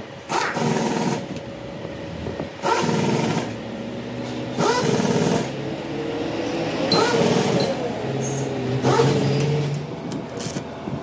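Stick (arc) welder striking short tack welds: about five brief bursts of crackling arc, each under a second, separated by pauses, over a steady hum.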